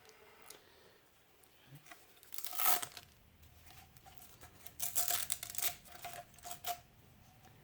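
Velcro hook-and-loop strap being ripped open: one long rip, then a quick run of shorter rips near the end.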